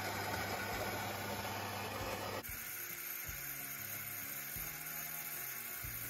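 Philips automatic espresso machine running a cappuccino cycle: a rough, louder machine noise with a low hum for the first two seconds or so, then, after an abrupt change, a steady hum and hiss as frothed milk streams from the spout into a glass cup.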